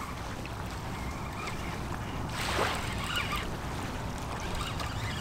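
Wind rumbling on the microphone over small waves lapping the beach, with a brief louder rushing hiss about two and a half seconds in.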